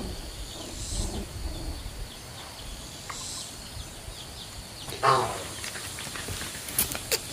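Outdoor farmyard sound with faint, high chirps repeating. About five seconds in comes one short, loud animal call, and near the end two sharp clicks.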